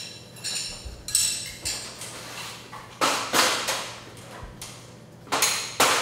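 Steel torsion-spring winding bars clinking together with a short metallic ring, then an aluminum stepladder clattering and rattling as it is picked up and carried, once about three seconds in and again near the end.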